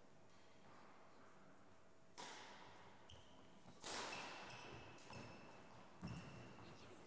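Badminton rally: a racket hitting a shuttlecock four times, one to two seconds apart, each hit ringing on in a large hall's echo, the loudest about four seconds in. Short high squeaks, most likely shoes on the wooden court, come between the hits.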